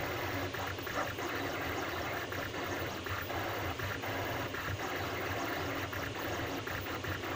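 Anycubic Kossel delta 3D printer printing: its stepper motors whir through short, quickly changing moves over a steady low hum.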